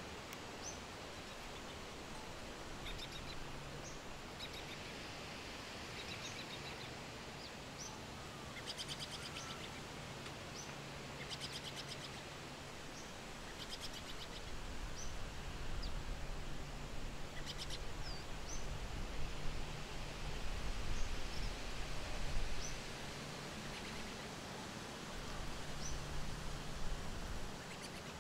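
Outdoor background noise with small birds chirping in short, high calls again and again, and a few quick rattling trills. A low rumble rises in the second half and swells a few times before fading.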